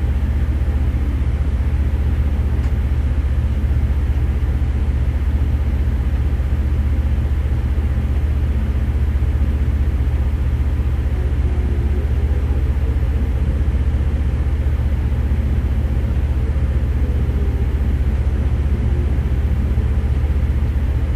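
Steady low mechanical drone that stays the same throughout.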